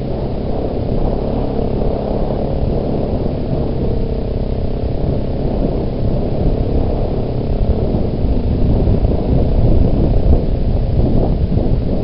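Yamaha Big Bear 400 ATV's single-cylinder four-stroke engine running steadily while riding along a dirt track, with low wind rumble on the microphone. It gets a little louder toward the end.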